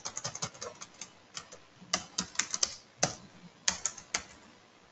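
Typing on a computer keyboard: irregular short runs of keystroke clicks with brief pauses between them, as numbers are keyed into data-entry fields.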